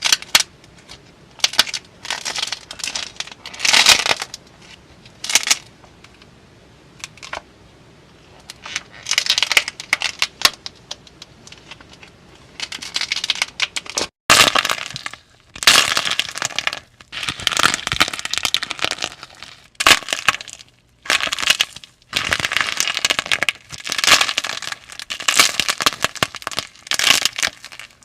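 Slime being squeezed and pressed, giving irregular bursts of crackling, popping clicks separated by short pauses.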